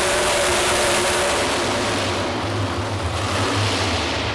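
Ford outlaw 4x4 pulling truck's engine running at full throttle under load as it drags the pulling sled, then backing off about two seconds in and dropping to a low rumble as the pull ends and the truck stops.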